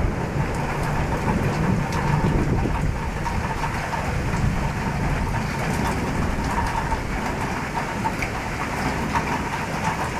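Heavy rain pouring down steadily in a thunderstorm, a dense hiss with scattered drop ticks. A low rumble of thunder dies away over the first few seconds.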